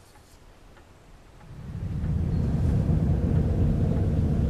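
A low, steady rumbling drone swells up about a second and a half in and then holds.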